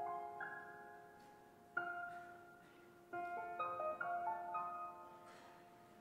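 Soft piano music: notes and chords struck every second or so and left to ring out and fade.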